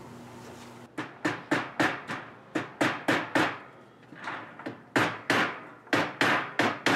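Hammer tapping small nails into a wooden fence-picket board: a steady run of sharp strikes, about three a second, starting about a second in.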